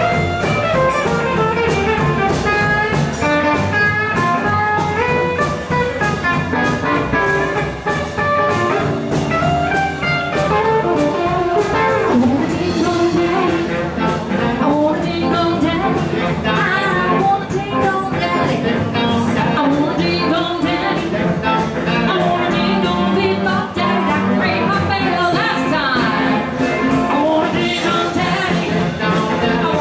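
Live blues band playing in 1950s style: electric guitar, acoustic guitar, drum kit and saxophone, over a steady drum beat.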